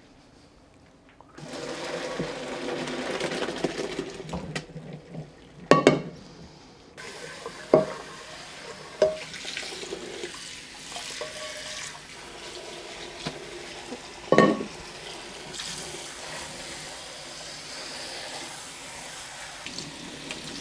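Water from a pot of parboiled rice poured out into a colander in a stainless steel sink, then a tap running over the drained rice to rinse off the salt. Several sharp metal clanks of the pot and colander against the sink ring out in the middle.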